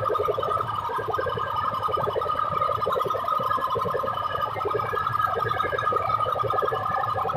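Stacks of horn loudspeakers in a DJ sound-box competition blaring a distorted, siren-like wail, with steady high and middle tones over a fast flutter.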